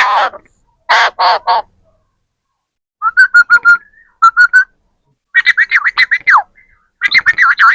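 Parrot calling: three harsh squawks at the start, then runs of rapid chattering calls and warbling whistled notes, one gliding down near the middle.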